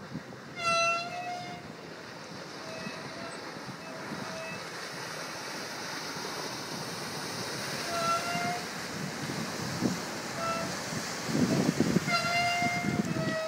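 A Sea Ray 230 Weekender cabin cruiser with a MerCruiser 260 V8 runs past at speed. The rush of its engine and spray grows louder as it nears, and a heavy low rumble comes in near the end as it passes close. About eight short honks at one steady pitch sound over it, the first and loudest about a second in.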